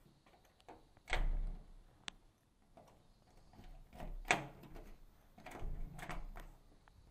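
A few separate clunks and sharp clicks from a door being handled, the loudest a dull thud about a second in and another a little past the middle.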